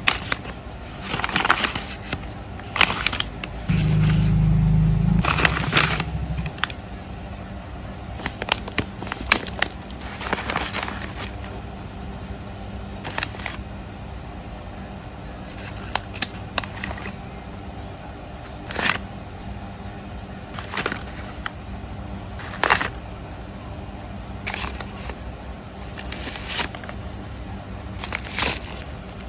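Plastic blind-bag packaging crinkling and rustling as it is handled and opened, in short irregular bursts, with a low rumble about four seconds in.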